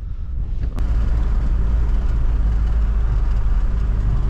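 Car driving on the road, heard from inside the cabin: a steady low rumble of engine and tyres that sets in after a sharp click about a second in.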